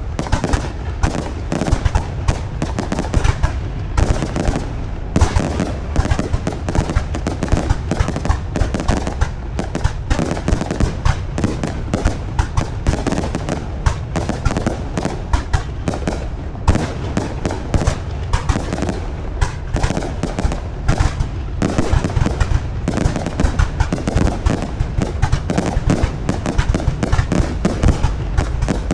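Fireworks display: a continuous barrage of sharp bangs and crackles, many each second, over a deep rumble.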